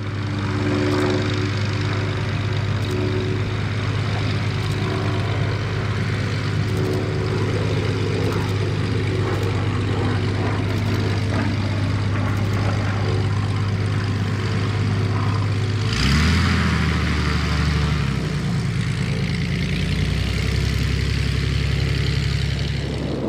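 XtremeAir XA-41 aerobatic plane's piston engine and propeller running steadily at low power on the ground. About two-thirds of the way through, the engine note shifts and gets a little louder.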